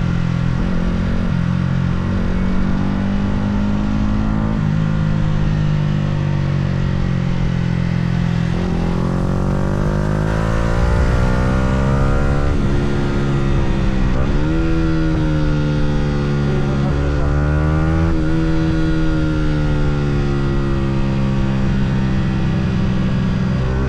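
Yamaha R125's single-cylinder four-stroke engine on the road, at first holding a steady note, then from about eight seconds in revving up, with its pitch falling and climbing again several times as it is worked through the gears.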